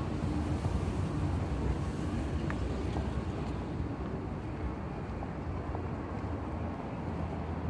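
Steady low rumble of city background noise, with a few faint ticks.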